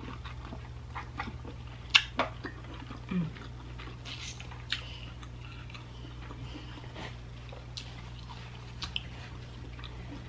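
Close-up eating sounds of a person chewing boiled lobster and shrimp: wet chewing with scattered sharp clicks and lip smacks, the loudest about two seconds in, over a steady low electrical hum.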